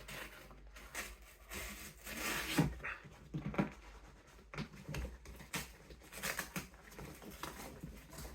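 Cardboard and styrofoam packaging being handled as a computer case is worked out of its box: irregular rustling and scraping with light knocks.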